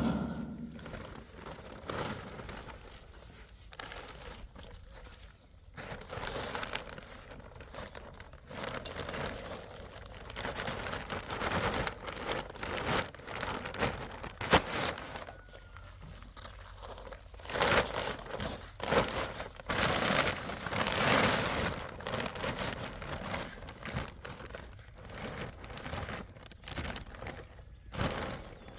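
Irregular crinkling and rustling that swells and fades, with scattered small clicks and crunches.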